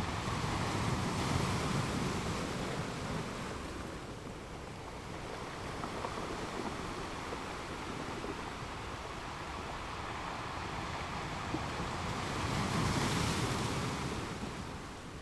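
Sea waves breaking and washing up on a beach, swelling twice: in the first couple of seconds and again near the end.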